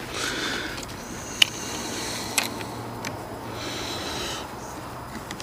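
Hand work on metal parts: a few sharp clicks and knocks, the loudest about a second and a half in, over a faint steady hum.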